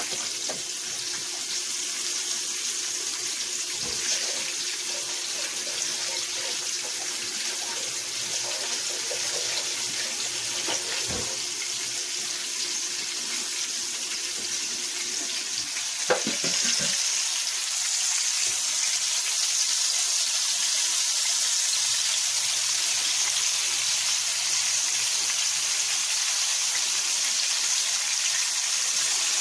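Flour-dredged chicken liver frying in hot olive oil, a steady sizzle. About sixteen seconds in there is a knock, and the sizzle then grows louder and stays so.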